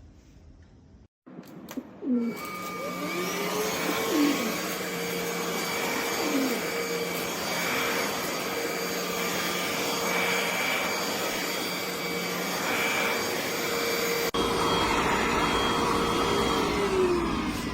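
NADALY cordless stick vacuum switched on with a few clicks about a second in, then its motor running with a steady whine and a loud rush of air. Near the end the whine drops in pitch.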